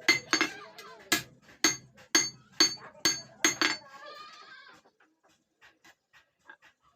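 Hammer striking iron, sharp ringing blows about two a second that stop about four seconds in, followed by a few faint light taps.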